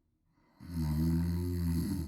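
A woman snoring loudly: after a quiet pause, one long, low snore begins about half a second in and lasts roughly a second and a half.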